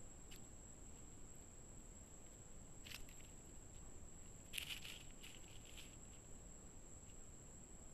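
Near silence on a trail camera recording: a steady faint high electronic whine over low hiss. A few faint short crackles come about three seconds in, and a brief cluster of them just under five seconds in.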